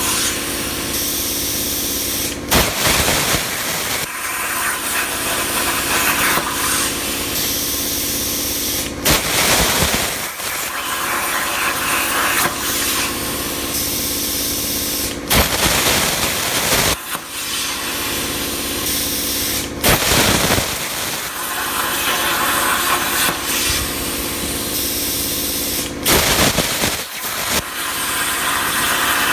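Razorweld 45 plasma cutter on a CNC table cutting 16-gauge sheet steel at about 32 amps: a steady hiss of air and arc with a hum. It is broken every few seconds by short, louder bursts and dips.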